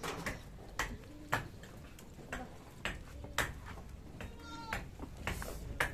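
Goats and sheep tearing and chewing leaves from a hand-held branch: irregular sharp crunching clicks, about one or two a second. A short, high animal call about four and a half seconds in.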